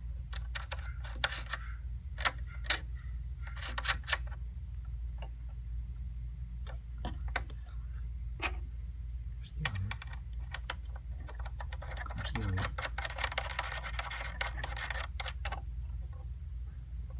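Scattered clicks and small knocks of computer hardware being handled, with a dense run of rattling clicks a little after the middle, over a steady low hum.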